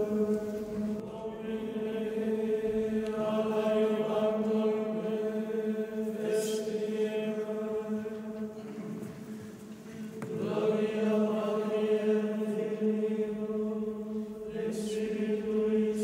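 Chanting on the soundtrack: voices hold long, steady notes over a drone. The sound dips briefly about nine seconds in, then the next phrase begins.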